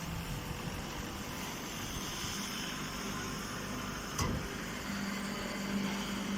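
Corn straw baler running: steady machine noise, with a single knock about four seconds in and a steady hum that joins about a second later.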